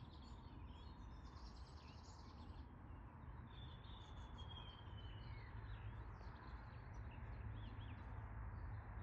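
Faint outdoor ambience: small birds chirping and calling over a steady low rumble.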